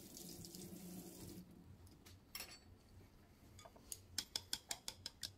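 Water running briefly, stopping about a second and a half in. Then, about four seconds in, wooden chopsticks start clicking rapidly against a ceramic bowl, about six taps a second, as raw eggs are beaten.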